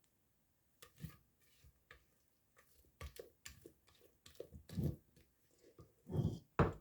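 An ice cream scoop knocking and scraping in a bowl of thick cake batter, in scattered short strokes, with the loudest knocks near the end.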